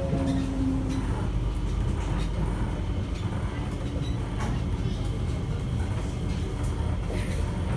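Cabin noise inside a Kawasaki & Nippon Sharyo C751B metro train: a steady low rumble of the train running on the track, with a short hum near the start.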